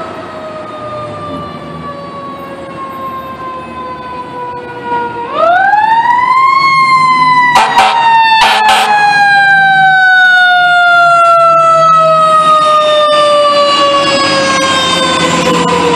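Fire engine siren in a slow wail: its pitch sinks, then about five seconds in it winds quickly back up and slowly falls away again, louder from then on. Two short horn blasts sound a second apart just after it peaks.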